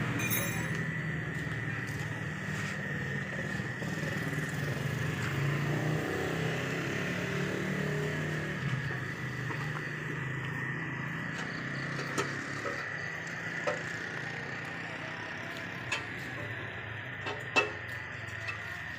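An engine running steadily with a low hum, under a thin, steady high whine. Several sharp knocks come in the last third, the loudest shortly before the end.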